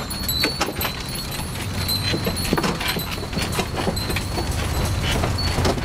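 Bullock cart on the move: the wooden cart rattling and clattering over a steady low rumble of its wooden wheels rolling, with the bullock's neck bell jingling irregularly.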